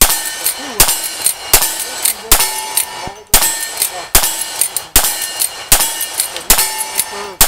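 Lever-action rifle fired in a quick string of about ten shots, roughly one every 0.8 seconds, with steel targets ringing after the hits.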